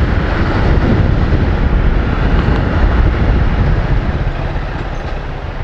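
Honda CG 160 Fan motorcycle on the move, its single-cylinder engine running under a steady rush of wind and road noise, easing off a little near the end. The engine has the odd noise that the Honda mechanic put down to excessive valve clearance.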